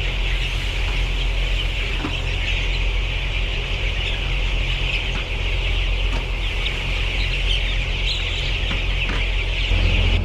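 A large flock of chickens in a poultry house calling all at once, many overlapping high clucks and peeps blending into a continuous chatter, over a steady low hum.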